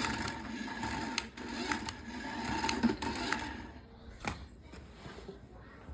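Small electric motor of a remote-control Pac-Man toy whirring as it drives, stopping about three and a half seconds in. A few sharp clicks are heard along with it.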